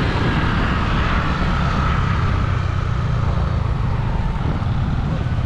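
Steady road noise from a moving vehicle: engine drone and rushing wind, without letup.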